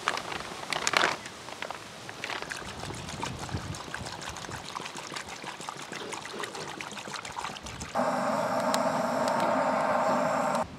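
Water bubbling and trickling in a cooking pot of meat, with scattered small clicks. Near the end a louder, steady sound cuts in suddenly and cuts off just as suddenly.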